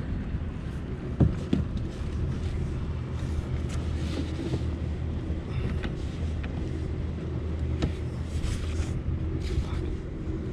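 Steady low engine rumble from a motor running somewhere nearby, with a few sharp knocks against the plastic kayak hulls, the loudest about a second in.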